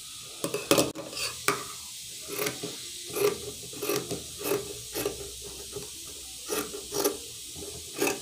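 Tailor's scissors cutting through folded cloth: a run of short metallic snips, roughly one every half second, starting about two seconds in.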